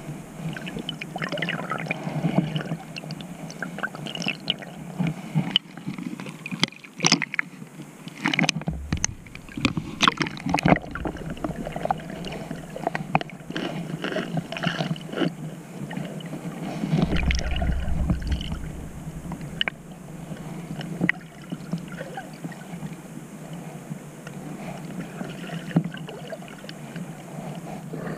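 Muffled underwater sound heard through a camera's waterproof housing: a continuous swish of moving water with scattered sharp clicks and knocks, bunched about a third of the way in. About two-thirds through there is a brief louder, deeper rumble.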